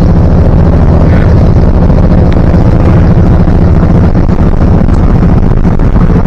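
Old Dodge pickup truck driving at a steady speed: a steady low engine drone with road and wind noise.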